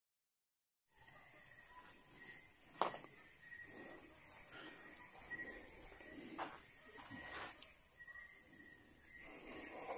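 Night chorus of crickets, a steady high-pitched trill that cuts in about a second in, with scattered footsteps and handling knocks; a sharp click about three seconds in is the loudest sound.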